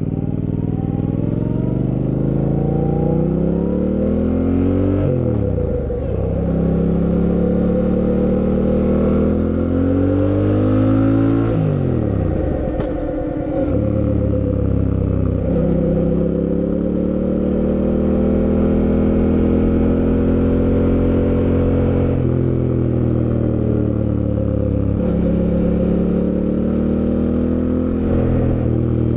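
Fantic Caballero 700 Scrambler's parallel-twin engine accelerating up through the gears: the pitch climbs in each gear and drops at upshifts about 5, 12 and 15 seconds in, then holds steady at cruising revs with a couple of smaller changes later.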